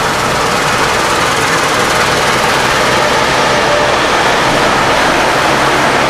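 Claas Lexion combine harvester running under load as it harvests, a loud steady rush of engine and threshing machinery with a low engine hum underneath.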